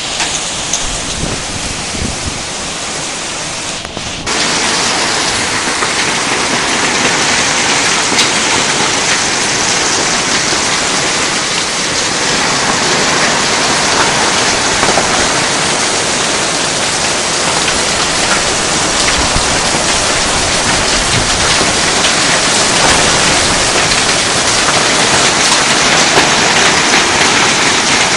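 Heavy rain pouring down steadily; the rain abruptly grows louder about four seconds in.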